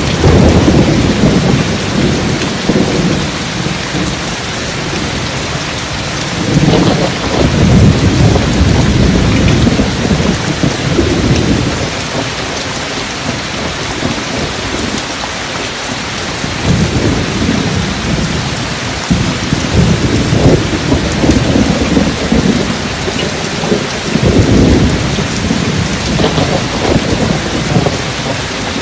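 Steady rain falling under deep rolling thunder. The thunder comes in four long low rumbles of several seconds each, at the start and again about a quarter, a half and near the end of the way through.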